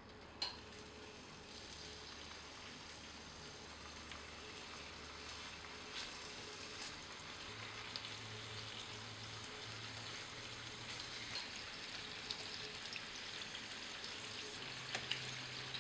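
Bacon-wrapped chicken rolls frying in hot oil in a pan: a steady fine sizzle with small crackles, growing slightly louder. A single light knock about half a second in.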